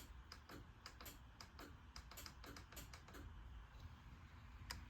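Near silence with faint, irregular light clicks, several a second.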